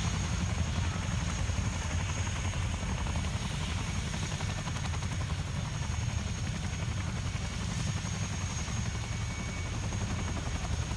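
Military helicopters running steadily, a deep, continuous rotor rumble with a thin, steady high whine above it.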